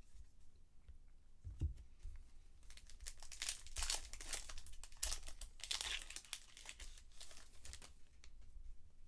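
Foil trading-card pack wrapper being torn open and crinkled by hand, a dense crackling from about three seconds in until near the end. A soft thump comes about a second and a half in.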